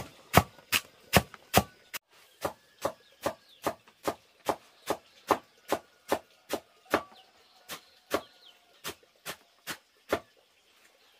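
Steady rhythmic chopping, a blade striking down onto wood about two and a half times a second. The strokes grow weaker after about seven seconds and stop near the end.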